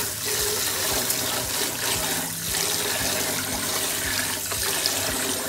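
Tap water running steadily into a rice cooker's inner pot while hands swish and rub short-grain sushi rice in the water, washing the rice.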